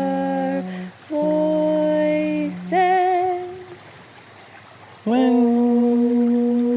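A voice singing unaccompanied in long held notes, a chant line drawn out. One note wavers about three seconds in, and after a short pause a long note slides up into place about five seconds in and is held.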